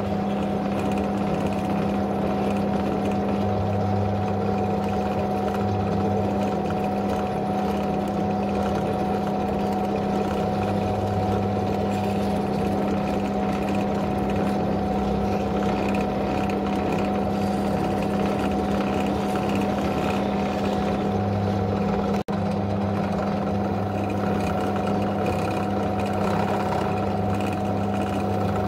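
Bench pillar drill motor running steadily with an exhaust valve spinning in its chuck, while a knife blade scrapes carbon off the valve head. The drill's hum holds a constant pitch throughout.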